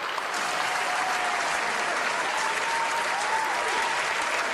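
Crowd applause, dense and steady, starting abruptly.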